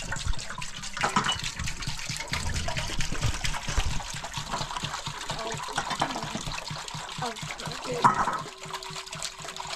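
Water splashing and trickling in irregular bursts, as if poured or handled by hand.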